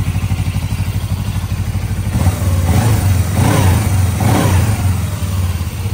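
Suzuki GS500's air-cooled parallel-twin engine idling steadily. About two seconds in it is revved with three quick throttle blips, each rising and falling in pitch, then it settles back to idle.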